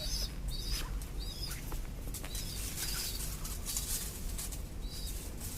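Pigeon chicks peeping: short, high, squeaky calls repeated at irregular intervals, with faint clicks and rustling between them.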